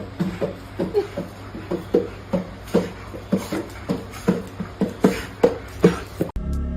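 An animal making a rapid series of short, pitched calls, about three a second, that the person nearby reacts to as strange. About six seconds in it cuts to music.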